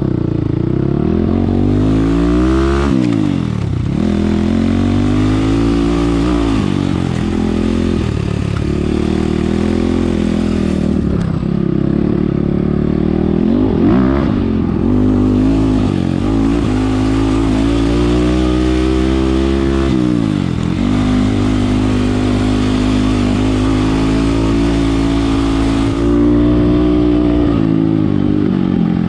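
Enduro dirt bike engine under way off-road, its revs climbing in long pulls and dropping back sharply several times, about two and a half seconds in, at fourteen seconds and at twenty seconds.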